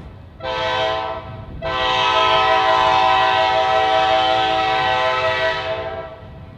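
Diesel locomotive air horn sounding one short blast and then, after a brief gap, one long steady blast that fades away near the end.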